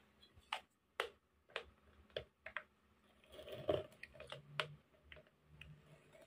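Faint, scattered light clicks and taps, roughly one or two a second, from a thick plastic jar and a soldering iron being handled as the iron is pressed onto the jar's metal strip. A faint low hum comes in during the second half.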